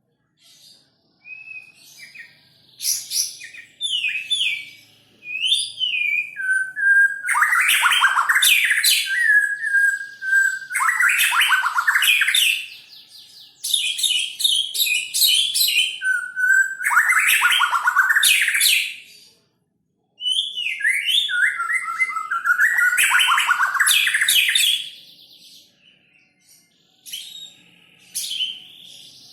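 White-rumped shama (murai batu) in full song: loud phrases of varied sliding whistles and fast trills, each a few seconds long with short pauses between. It begins with a few short whistled notes.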